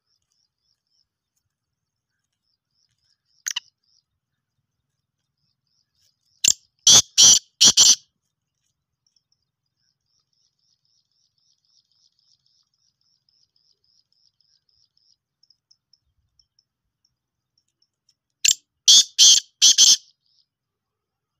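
Black francolin calling: two loud phrases of about five harsh, grating notes each, one about six seconds in and one near the end, with a short single note a few seconds in. A faint, steady high-pitched chirring of insects runs underneath.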